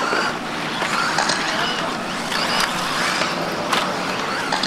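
Electric RC racing buggies with 17.5-turn brushless motors running on a dirt off-road track: a steady whine and hiss of motors and tyres, with a few sharp clacks spread through.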